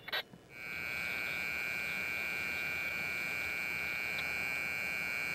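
Diesel locomotives idling, heard as a steady high-pitched whine over a low rumble, which starts just after a short click about half a second in.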